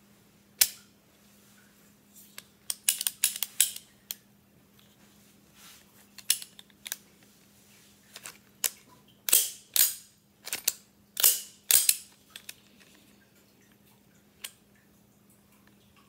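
Sharp metal clicks and snaps from a homemade non-firing dummy URU submachine gun's action as it is cocked, dry-fired and its selector switched, checking function in each selector position. Irregular clicks come in clusters, the loudest snaps near the middle with a short ring.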